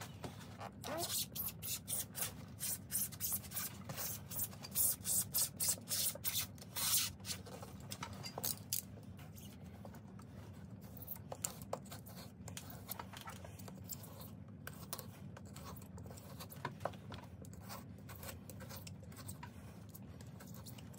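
Utility knife cutting and scraping the old, crumbling rubber sole away from a boot, in a quick series of short, sharp scraping strokes. The strokes thin out to occasional quieter scrapes and clicks after the first several seconds, over a low steady hum.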